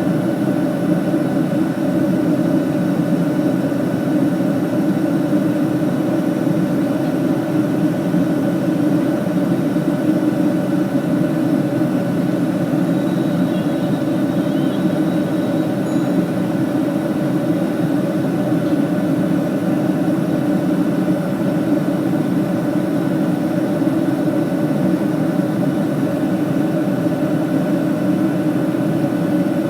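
Steady in-flight cabin drone of an airliner: engine and airflow noise, even and unchanging, with a faint steady hum riding on it.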